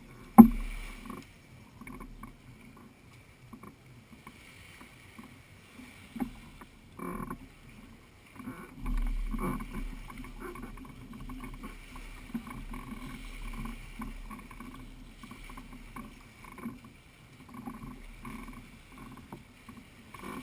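Small waves lapping and splashing around an inflatable boat in shallow water, with scattered light knocks from the boat. A single sharp knock about half a second in is the loudest sound.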